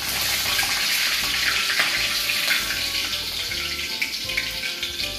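Hot oil sizzling and crackling steadily in a wok around a piece of deep-fried pig's face as it is lifted out with metal tongs.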